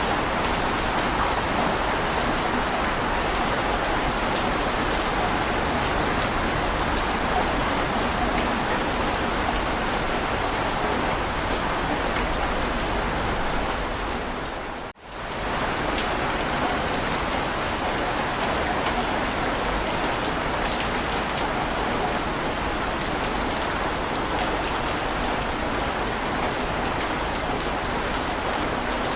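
Heavy rain falling steadily, with a brief drop-out to near silence for under a second about halfway through.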